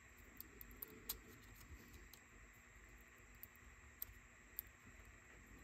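Near silence with a few faint, scattered light clicks, the clearest about a second in, from small parts being fitted while a cassette Walkman is reassembled.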